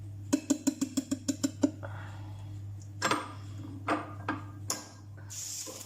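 Floured cake mould being knocked in a quick run of about nine taps in just over a second, shaking the flour dusting around the greased tin, followed by a few separate clunks as it is handled, and a short hiss near the end.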